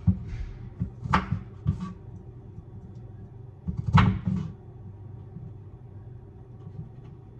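A few scattered kitchen knocks and clunks, like things being set down or a cupboard being handled, over a steady low hum. The loudest knock comes about four seconds in.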